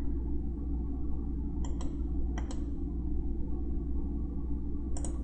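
A few sharp computer mouse clicks, two quick pairs about two seconds in and another near the end, over a steady low electrical hum.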